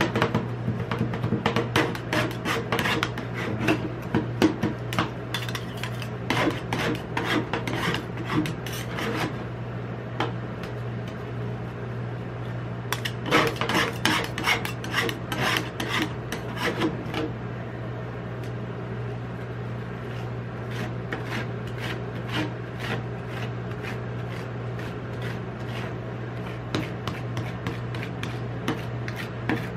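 Two metal spatulas chopping and scraping ice cream mixture on the steel cold plate of a rolled-ice-cream machine: quick rapid clicks and rasping scrapes, dense for the first nine seconds and again a few seconds later, then softer scraping as the mixture is spread flat. A steady low hum runs underneath.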